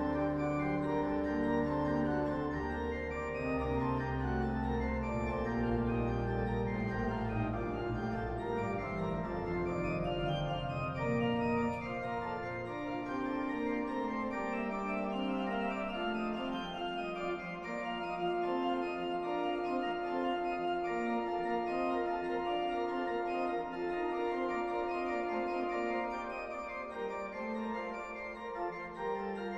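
Organ music playing slow held chords, with a deep bass line for the first dozen seconds or so, after which the bass drops away and higher sustained notes carry on.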